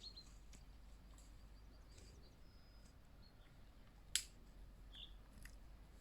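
Near-silent outdoor ambience with scattered faint ticks and a few brief high chirps, and one sharp click about four seconds in.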